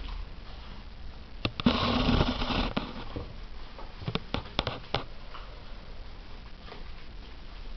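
A loud rustling burst about two seconds in, then a quick series of light clicks a little after four seconds in, as a kitten paws at a shallow plastic lid of water on a laminate floor.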